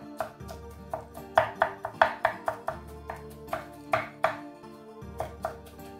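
Kitchen knife finely chopping pickled cucumbers and mushrooms on an end-grain wooden cutting board: quick, uneven knocks of the blade on the wood, about three a second. Background music plays underneath.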